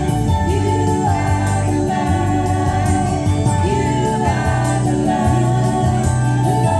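Background music: an upbeat Christian children's worship song with a singing voice over a steady drum beat.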